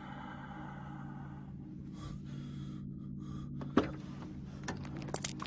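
A steady low soundtrack drone, with a brighter ringing tone over it for the first second and a half. A little under four seconds in comes a single sharp click, a car door opening, and near the end a few lighter clicks of footsteps on tarmac.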